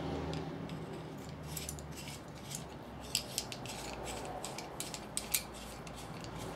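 Light metallic clicks and taps from small motorcycle fork damper parts being handled on the bench as the threaded end piece is fitted to the damper rod. The clicks come in small irregular clusters over a faint low hum.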